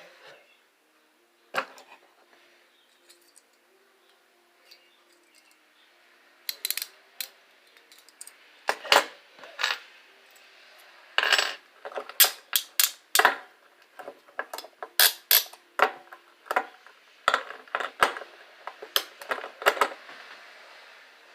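Metal handcuffs clinking and clicking as they are handled, in irregular sharp clacks: a few at first, then many close together from about six seconds in.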